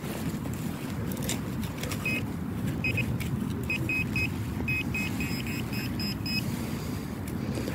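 Handheld metal-detecting pinpointer beeping as its tip is worked into a plug of soil, signalling a metal target in the plug. The short high beeps start about two seconds in and come in quicker runs around the middle, over a low rumble of wind on the microphone.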